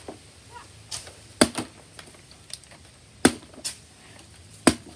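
Partly filled plastic water bottle being flipped and landing on a concrete floor with sharp knocks: three loud hits about a second and a half apart, with fainter taps between.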